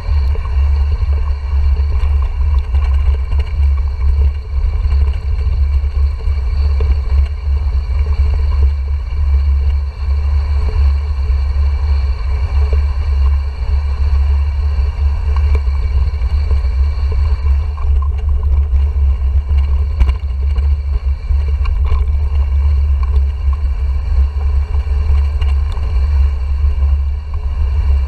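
Steady low rumble of wind and riding noise on a GoPro Hero 4 camera's microphone as a mountain bike rolls downhill, with scattered small clicks and rattles from the bike over the trail.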